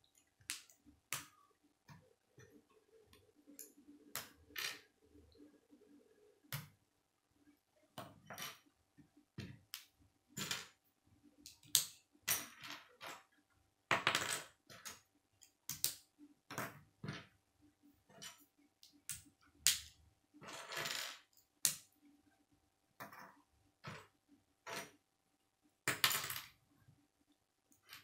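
K'nex plastic rods and connectors clicking and clacking as they are handled, snapped together and set down on a wooden table: irregular sharp clicks, with a few longer rattles of loose pieces.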